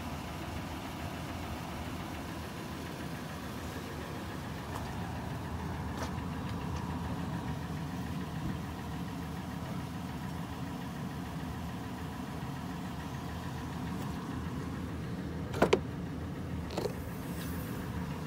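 Toyota 4Runner's V6 engine idling steadily, heard from outside near the rear of the SUV. Near the end come two sharp clicks as the rear liftgate is unlatched and swung open.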